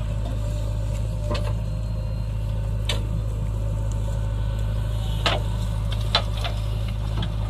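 Diesel engines running steadily: a Sonalika tractor idling and a JCB 3DX backhoe loader working its digging arm. A few sharp knocks and clanks are scattered through.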